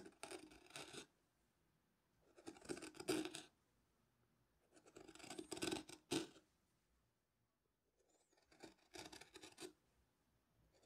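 A hand carving chisel paring grooves into a turned wooden lampshade: four scraping cuts, each about a second long, with short pauses between strokes.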